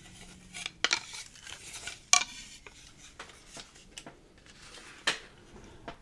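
Mango-wood salad hands being handled and knocked lightly together: a few sharp wooden clacks, loudest about one, two and five seconds in, with soft rubbing and handling sounds between them.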